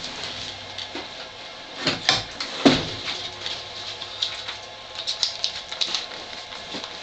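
NxStage dialysis machine's cartridge door being swung open by its lever, with a few clunks and knocks about two to three seconds in. Lighter clicks follow a few seconds later.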